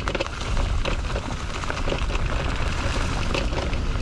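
Mountain bike rolling fast down a dirt trail: tyre noise with many quick clicks and rattles from the bike, over a low rumble of wind on the action camera's microphone.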